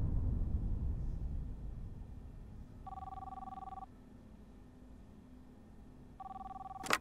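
Office desk telephone ringing with an electronic two-tone ring: two rings about a second long, roughly three seconds apart, the second cut short near the end by a sharp click as the receiver is picked up. A low rumble fades away over the first two seconds.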